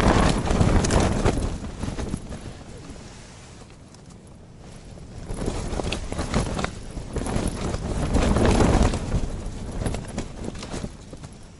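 Gusts of wind buffeting a small ice-fishing tent, the tent fabric flapping and crackling. The gusts are strong at first, ease to a lull about four seconds in, then build again and peak near the end before dying down.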